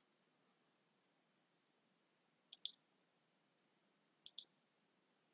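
Faint computer mouse clicks: two quick double clicks, about two seconds apart.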